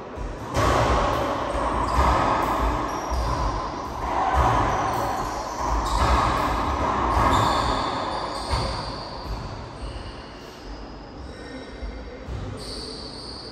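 A racquetball rally in an enclosed court: the ball cracks off racquets and walls every second or two, each hit echoing. Sneakers give short high squeaks on the court floor. The hits thin out and the sound grows quieter after about eight seconds.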